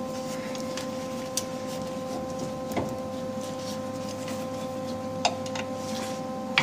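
Steady mechanical hum with a few even tones in it, and a few light, separate metallic clicks of a wrench being fitted onto a nut welded to a broken exhaust-manifold bolt.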